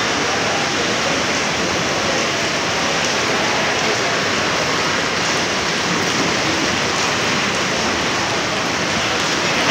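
Indian Railways freight train of covered box wagons rolling past close beside the platform, a loud, steady, even noise of wheels on rail with no distinct beat.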